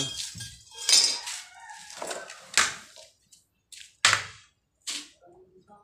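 Steel pipe being handled: several separate short metallic knocks and scrapes with pauses between them.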